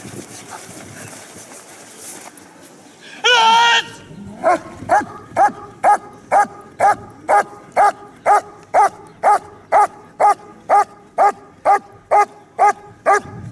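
German shepherd dog barking at the protection helper in a hold-and-bark: a steady run of loud barks, about two a second, starting some four seconds in. It comes just after one long, wavering cry.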